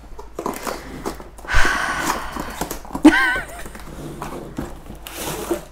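Packaging and a returned laptop being handled: rustling and knocks, with a sudden loud rip or scrape about one and a half seconds in and a brief wavering squeal about three seconds in.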